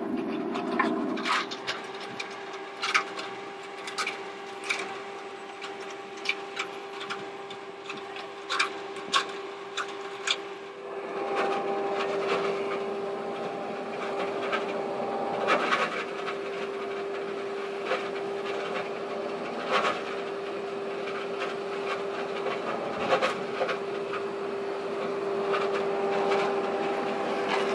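Insulation blowing machine running: a steady electric-motor hum with irregular clicks, knocks and rasping from the machine. It gets louder about eleven seconds in.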